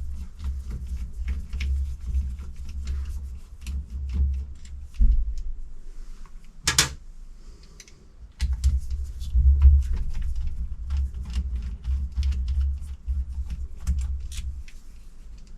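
Hand tools and metal parts clicking, tapping and knocking while an electric supercharger is being taken apart, with dull low knocks of handling throughout and one sharp, louder click about seven seconds in.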